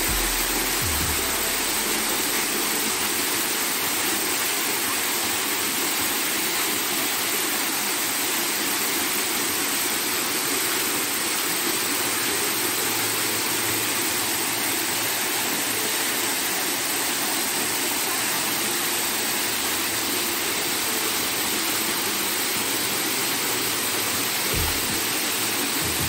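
Waterfall pouring steadily onto rocks, an even, unbroken hiss of falling water.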